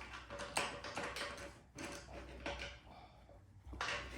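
A few irregular light clicks and taps of an adjustable wrench on the nut and bolt of an air compressor's wheel as it is tightened.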